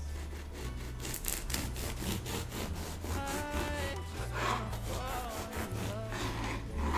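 Serrated bread knife sawing through a crusty rye loaf on a wooden cutting board, in repeated back-and-forth scratchy strokes.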